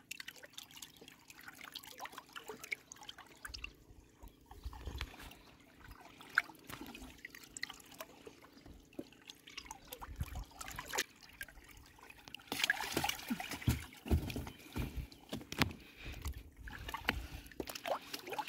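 River water sloshing and trickling around people wading waist-deep, with scattered small splashes and drips. The sloshing grows louder for a second or two about two-thirds of the way through.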